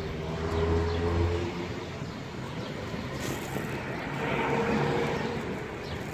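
Road traffic. A vehicle engine runs with a low steady hum for the first second and a half, then another vehicle passes, loudest about four and a half seconds in.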